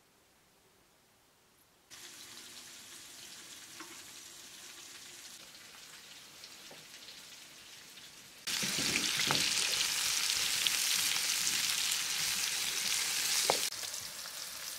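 Oil and sliced vegetables sizzling as they fry in a pan on a wood-burning stove. The first two seconds are near silence, then the sizzle starts suddenly. It turns much louder about halfway through and drops back near the end, with a few faint clicks in it.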